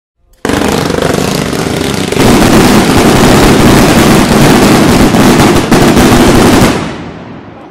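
Dense, rapid barrage of firework bangs and crackle, starting about half a second in and getting louder around two seconds. It stops near the end and dies away.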